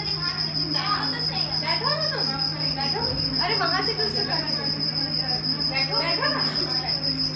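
A continuous high-pitched, rapidly pulsing trill like a cricket's, with indistinct women's voices talking underneath and a steady low hum.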